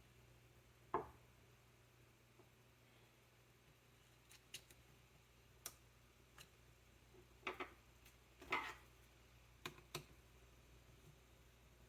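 Sparse small clicks and short scrapes of hands and a small tool working on a laptop's M.2 SSD slot, removing the installed SSD, against a quiet room hum; the loudest handling noises come about a second in and again a little past the middle.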